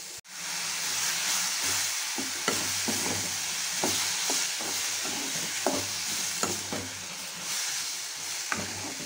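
Chopped onions and tomatoes sizzling in hot oil in a metal kadai, with a metal ladle scraping and clacking against the pan as they are stirred.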